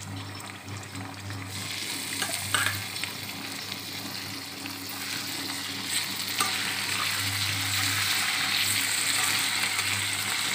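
Marinated chicken pieces sizzling in hot mustard oil in a steel kadai, with a metal spatula scraping and giving a few knocks against the pan as they are stirred. The sizzle grows louder about halfway through.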